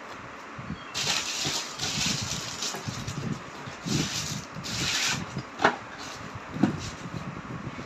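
A light bar in a plastic sleeve sliding into its cardboard box: plastic and cardboard rubbing and rustling in several bursts, with two sharp knocks later on as it settles in the box.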